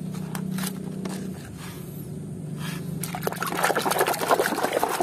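A hand sloshing and splashing in a plastic basin of muddy water, washing plastic toys; the splashing starts about three seconds in. Before it, quieter handling of a plastic toy in a plastic basket over a low steady hum.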